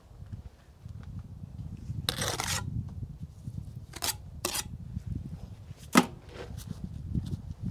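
A mortar-buttered brick being set into a notched gap in a brick column: a brief scrape about two seconds in, then a few sharp knocks of brick against brick, the loudest about six seconds in, over a low steady rumble.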